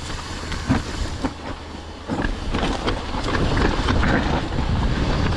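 Mountain bike, a Santa Cruz Nomad, riding down a rough trail: tyre rumble on dirt with steady clattering and rattling of chain and frame, and wind on the microphone. It grows louder and busier about two seconds in.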